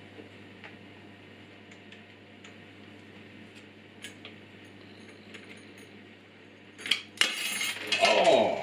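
Metal parts of an angle grinder stand clinking and rattling as the grinder is handled and fitted into it: faint scattered clicks, then a sudden louder clatter and scrape about seven seconds in.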